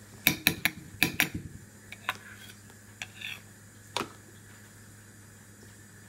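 Clear plastic bowls knocked and clattered against a plastic high-chair tray: a quick run of sharp knocks in the first second and a half, then a few lighter taps.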